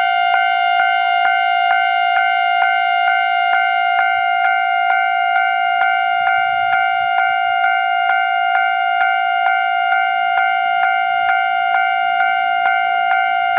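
Japanese level-crossing warning bell ringing steadily: one electronic pitched ding repeated a little over twice a second, the signal that a train is approaching the crossing.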